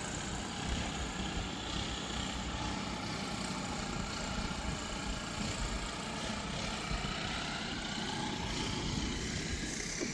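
Gas backpack leaf blowers (Echo) running at some distance, a steady engine-and-fan drone whose pitch rises and falls a little.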